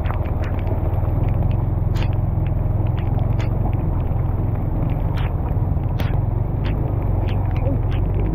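Motorbike engine running steadily at low revs while the bike rides over a rutted, muddy dirt track, with scattered sharp knocks and rattles.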